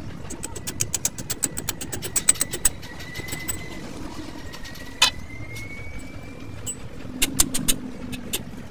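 Hand tool clicking on a truck's leaf-spring bolts: a fast, even run of metallic clicks, about eight a second, lasting a couple of seconds. About five seconds in there is a single sharp clank of metal on metal that rings briefly, and near the end a second short run of clicks.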